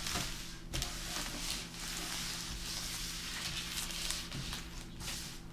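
Wrapped chocolate bars sliding and rustling on a wooden tabletop as they are shuffled by hand, with a couple of light knocks.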